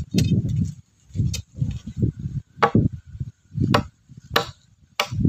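Repeated chopping strikes into wood from a hand tool, about one stroke a second, each a sharp crack over a duller thud, as when trimming a wooden post.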